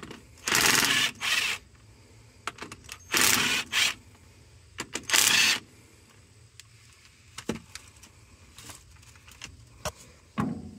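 Cordless impact wrench hammering in five short bursts, two about a second in, two around three seconds and one around five seconds, backing out the fasteners on the brass rings of a seized rotary manifold. This is followed by a few light clicks and a knock near the end as the tool is handled.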